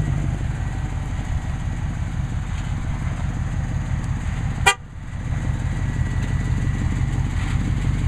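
Vehicle engine running with a steady, pulsing low rumble. A single sharp click comes a little past halfway, and the sound briefly drops after it.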